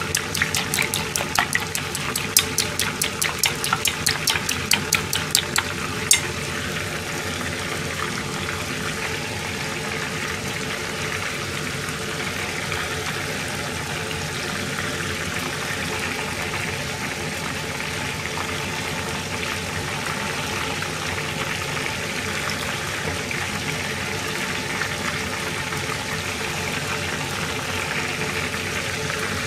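Chopsticks beating egg in a stainless steel bowl: rapid, even metallic clicks about five a second, stopping with a sharper click about six seconds in. After that a steady hiss with a low hum carries on.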